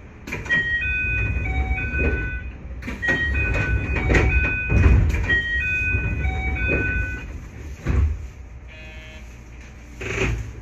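Station departure melody: a short electronic chime tune played through about twice over the low rumble of a train standing at the platform. Near the end come a thud and a louder knock as the train's sliding doors close.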